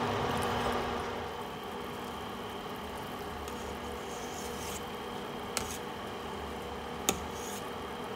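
Steady hiss and low rumble of a stove flame turned up high under a pot of soup water heating toward the boil, with two faint clicks in the second half.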